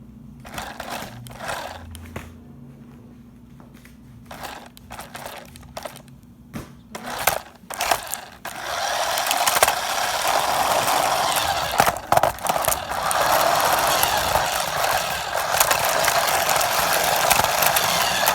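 Scattered clicks and rustles of handling, then from about eight seconds in a loud steady rattling rush: a toy RC car driving with a camera taped onto it, its motor and wheels heard close up, with a few knocks.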